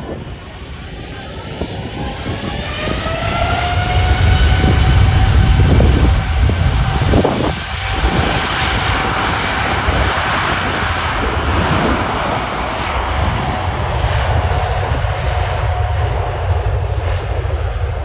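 Boeing 747-8F's four GEnx jet engines at takeoff thrust: a whine rises in pitch over the first few seconds and then holds steady, under a deep, loud jet roar that peaks about four to seven seconds in and stays loud to the end.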